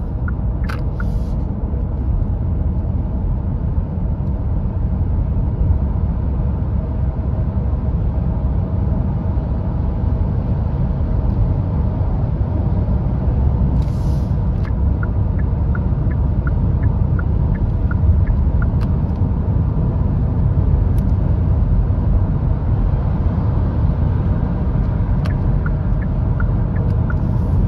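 Steady road and wind noise inside the cabin of a Hyundai Tucson full hybrid cruising at motorway speed, heard as a low, even rumble. The wind noise in this car is loud at speed.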